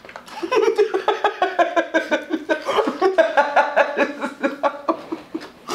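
A woman laughing hard and without a break, in quick ha-ha pulses of about five a second, for about five seconds.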